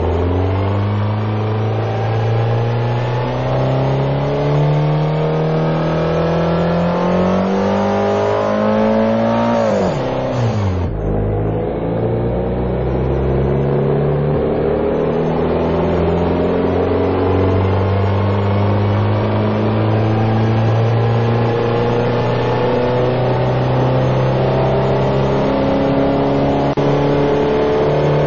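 Hyundai Veloster's four-cylinder engine pulling under acceleration. Its pitch climbs steadily for about ten seconds, then drops sharply as it shifts up, and climbs slowly again in the higher gear.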